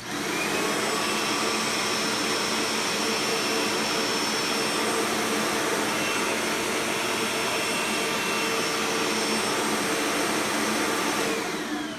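2005 Eureka Maxima upright vacuum cleaner switched on, its motor spinning up quickly and running steadily with a whine, then switched off near the end, its pitch falling as it winds down. The motor bearings have some slight wear.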